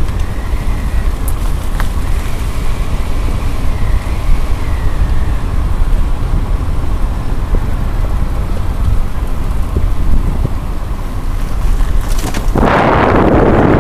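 Car driving slowly, heard from inside: a steady low rumble of road and wind noise on the microphone. A louder rush of noise comes in about a second before the end.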